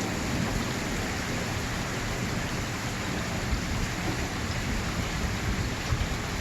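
Steady rain falling in a thunderstorm, with a low rumble underneath.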